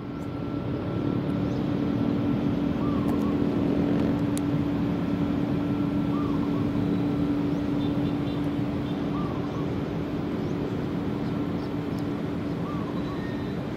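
Distant Airbus A350-900 airliner on final approach: a steady, continuous jet rumble with a low hum from its twin Rolls-Royce Trent XWB engines. Faint short chirps sound every couple of seconds.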